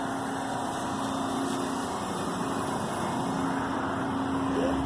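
Steady mechanical hum with a constant low tone, like a motor or engine running.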